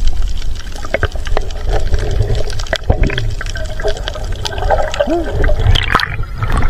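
Water sloshing and bubbling around a camera held underwater, heard muffled, with a low rumble and many small clicks, and a splash near the end as the camera breaks the surface.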